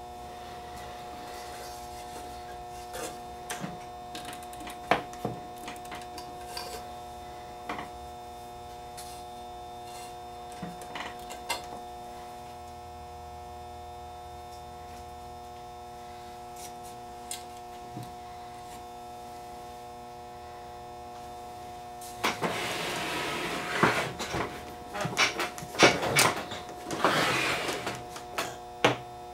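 Scattered small clicks and taps of hand tools and metal parts inside the open back of a reel-to-reel tape deck, over a steady electrical hum. About 22 seconds in comes a louder stretch of scraping and knocking as the wooden-cased machine is turned round on the bench.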